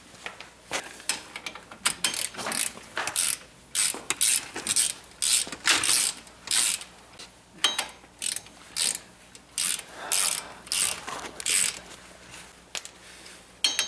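Hand ratchet wrench clicking in repeated back-and-forth strokes, roughly one or two a second, as a nut on the front wheel hub assembly is worked loose.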